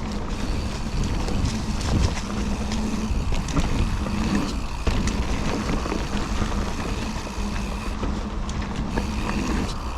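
Mountain bike ridden along a dirt trail: wind rushing on the camera microphone and tyres rumbling, with frequent clicks and rattles from the bike over bumps.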